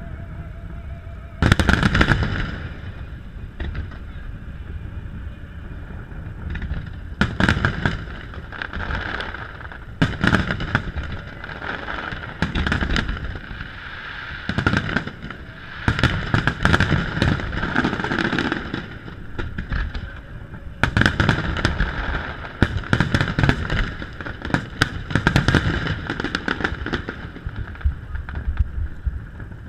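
Aerial fireworks shells bursting in repeated clusters of booms and crackles. A loud burst comes about a second and a half in, and the volleys are densest through the middle and in the second half.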